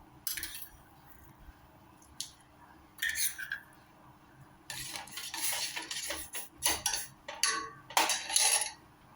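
A spoon clinking and scraping against pots and containers in irregular clatters, busiest in the second half, as sugar is spooned into milk heating on the stove.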